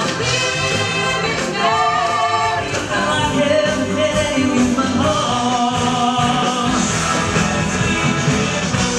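Stage-show music with singing, sustained without a break.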